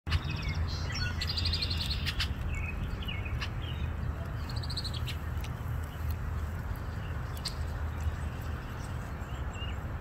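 Red-winged blackbird calling, several short buzzy trills in the first half, with a few sharp ticks. Wind rumbles on the microphone throughout.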